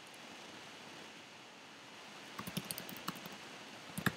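Typing on a computer keyboard: a quick run of key clicks starting about halfway through, a couple of them louder near the end, over a steady low room hiss.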